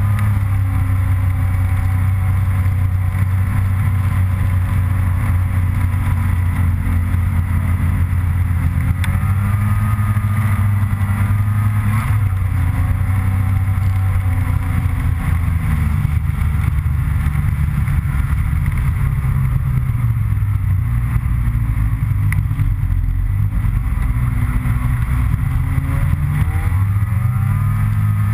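Snowmobile engine running steadily at trail speed, heard from on the machine. Its pitch dips and climbs a few times, near the middle and again toward the end, as the throttle is eased and opened.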